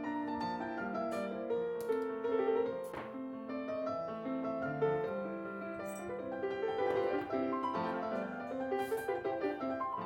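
Background piano music, a steady run of overlapping notes.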